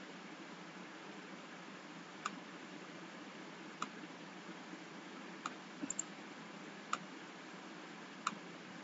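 Computer mouse clicking, a few sharp isolated clicks spread out with a quick double click about two-thirds of the way through, over a faint steady hiss.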